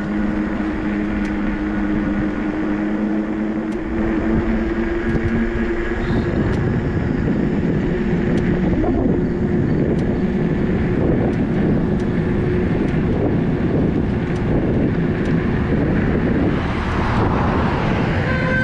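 Wind rushing over the microphone while riding a 3000 W 48 V electric dirt bike, with the motor's steady whine underneath. The lower note of the whine drops away about six seconds in. A car horn toots at the very end.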